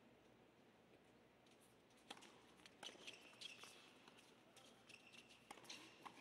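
Tennis ball hit back and forth in a doubles rally: sharp racket strikes starting about two seconds in, with short sneaker squeaks on the court between them. The whole is faint.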